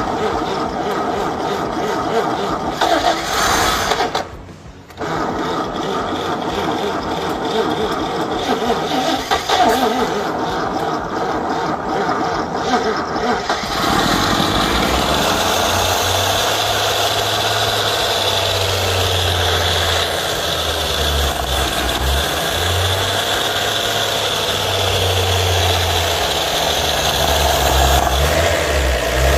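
Chevrolet stovebolt inline-six being cranked on the starter, with a short break about four seconds in, for its first start and cam break-in. It catches about fourteen seconds in and settles into a steady idle, which is described as purring nicely at 500 RPM.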